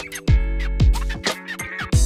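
Music: deep drum hits that drop in pitch, over steady held tones.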